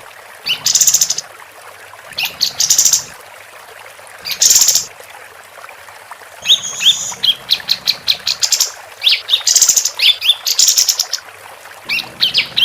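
Female kapas tembak, a bulbul, singing loudly: harsh buzzy chattering phrases about half a second long, then from about halfway a fast run of short sharp notes and rising chirps. A steady hiss lies underneath.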